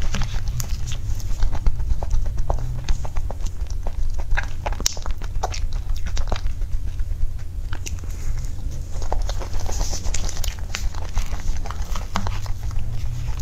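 Close-miked eating sounds: irregular sharp wet clicks and smacks from chewing mousse cake and from a knife cutting through the cake, over a steady low rumble.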